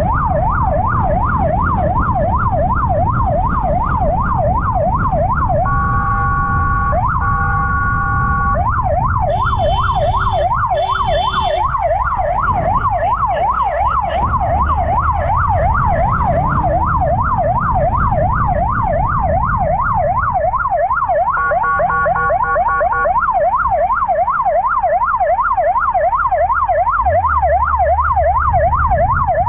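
Police motorcycle siren in a fast yelp, its pitch sweeping up and down about three times a second, over the motorcycle's engine and wind noise. The yelp gives way to a steady blaring tone twice about six seconds in and again around twenty-two seconds, with two short higher beeps around ten seconds.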